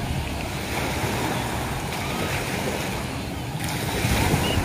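Small waves washing onto a sandy beach in shallow water, a steady rush of surf with wind buffeting the microphone.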